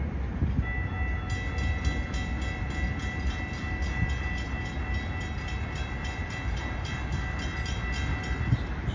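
Railroad grade crossing bell starting to ring about half a second in, striking a few times a second with a steady ringing tone, over a low rumble.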